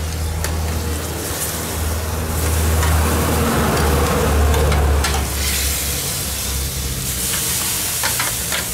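Marinated pork neck steaks sizzling in a pan on a gas grill, then sizzling as they are laid on the hot grate with steel tongs. A few sharp clicks of tongs on metal come through, over a steady low hum.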